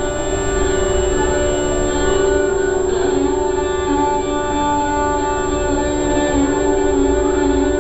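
Violin played in Hindustani classical style in raag Lalit: bowed, held notes that move from pitch to pitch over a steady drone tone.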